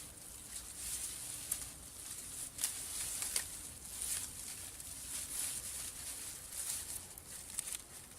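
Irregular rustling and scraping swishes of hand work, with a few sharp clicks in the first half.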